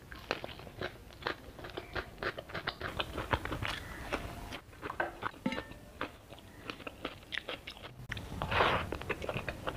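Close-miked mouth sounds of eating rice and curry by hand: chewing with crunchy bites and lip smacks, many short sharp clicks one after another. A brief rushing noise about eight and a half seconds in is the loudest moment.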